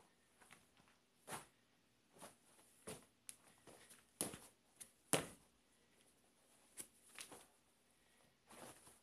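Faint, irregular soft thuds and scuffs of sneaker-clad feet stomping on other sneakers on a carpeted floor, about ten knocks, the strongest about four and five seconds in.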